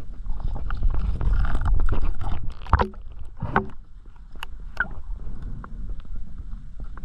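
Underwater sound picked up by a camera in its housing: a low rumbling water noise, heaviest in the first couple of seconds, with scattered sharp clicks and two louder knocks a little under a second apart near the middle.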